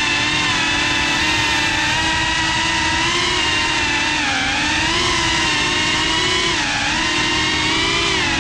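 GEPRC Cinelog 35 cinewhoop FPV drone's brushless motors and ducted propellers whining steadily in flight, the pitch dipping and rising with the throttle a couple of times.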